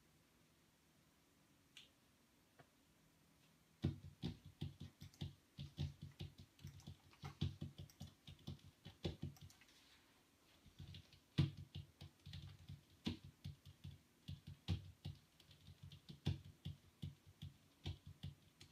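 Rapid, irregular clicking and tapping, several clicks a second, beginning about four seconds in after near silence, over a faint steady hum.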